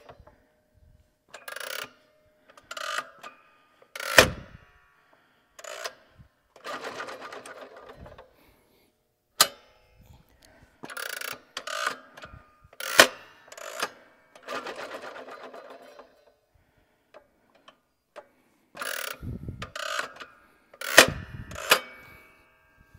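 Caldwell Claymore manual clay thrower cycled by its foot pedal with no clays loaded: repeated bursts of mechanical rattling and ratcheting, broken by several sharp snaps as the throwing arm releases.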